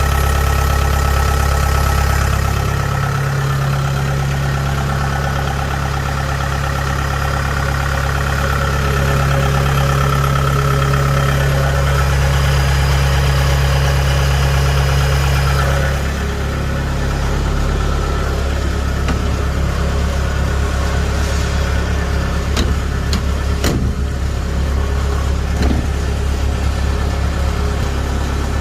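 Kubota DC70H rice combine harvester's diesel engine running steadily. Its note shifts about three seconds in and again near the middle, and there are a few sharp clicks in the second half.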